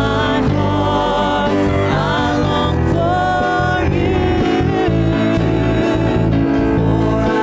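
Live worship band playing a gospel song: several voices singing held, wavering notes over keyboard, guitar and drums.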